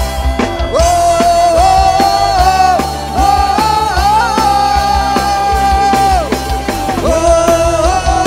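Dangdut koplo band music: a lead melody of long held notes that bend in pitch, over a steady drum beat.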